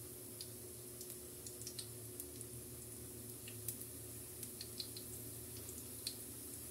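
Faint, scattered crackles and ticks from dry pancit bato noodles frying in a hot wok, a few a second, over a steady low hum.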